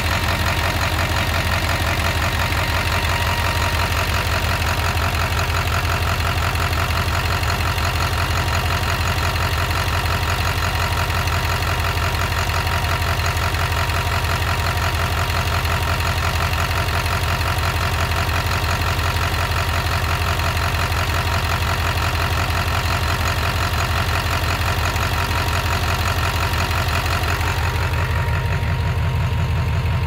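Warm 7.3 L Power Stroke V8 turbodiesel idling at about 700 rpm with its valve covers off, a steady, even diesel clatter. Near the end the sound turns duller, with less treble and more low rumble.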